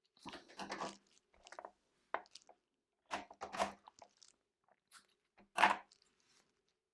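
Paper, cardstock and adhesive tape being handled by hand: a string of irregular rustling noises, the loudest about five and a half seconds in.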